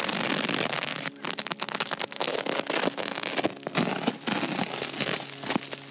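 Plastic wrap on a round hay bale crinkling and crackling as it is slit with a knife and peeled back by hand, a dense run of crackles with a short break about a second in.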